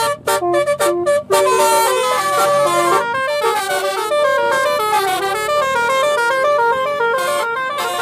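A telolet multi-tone car horn plays a fast tune of stepped notes, several horn tones sounding together.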